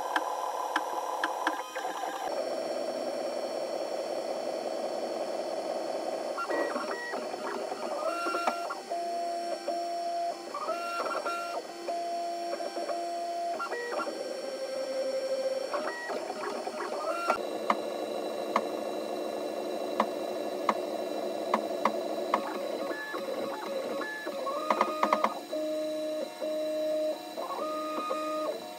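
FDM 3D printer at work: its stepper motors whine in steady tones that jump from one pitch to another as the print head changes speed and direction, with light clicks and ticks throughout. The sound shifts abruptly twice, about two seconds in and about seventeen seconds in.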